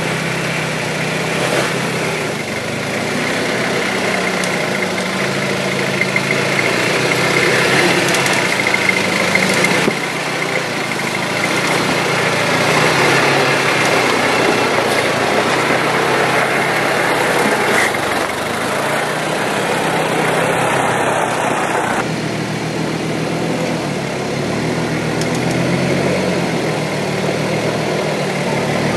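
Toyota Hilux's 3.0-litre turbo diesel engine running at low revs as the truck crawls slowly over rocks, with a steady hiss of noise over the engine note.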